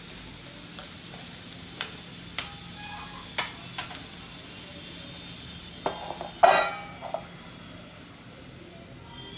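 Carrot and green chilli pieces frying in oil in a kadai with a steady sizzle, while a steel spoon knocks and scrapes against the pan several times. About six and a half seconds in comes a louder ringing metal clank.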